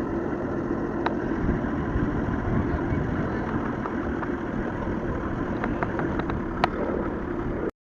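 Motorboat engine running steadily, with water and wind noise, a few faint clicks, then an abrupt cut to silence near the end.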